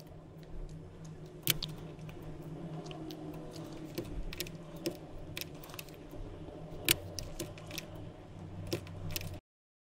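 Scattered faint clicks of a computer mouse and keyboard over a low steady hum, cutting off to silence near the end.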